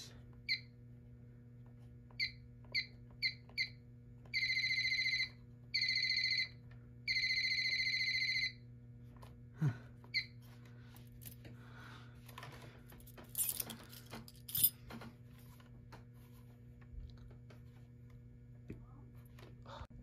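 Piezo sounder of a Fire-Lite ANN-80 fire alarm annunciator beeping: five short beeps, then three longer beeps about a second each, all on one high tone. This happens as its buttons are pressed while it shows a key bus trouble. Afterwards come a few light clicks and rattles of handling, over a steady low electrical hum.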